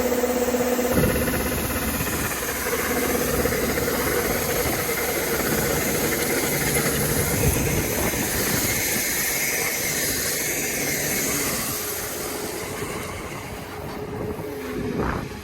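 Rice combine harvester running steadily with a mechanical whine and squeal. It eases off near the end.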